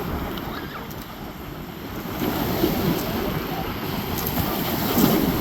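Black Sea waves washing on the shore, ebbing and then surging again, loudest near the end, with wind rumbling on the microphone.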